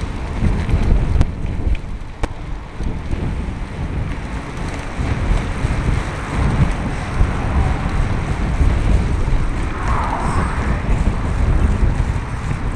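Wind rumbling on the microphone of a camera riding on a moving bicycle, a steady low buffeting mixed with tyre noise. A few sharp knocks in the first couple of seconds as the bike rolls over uneven patched asphalt.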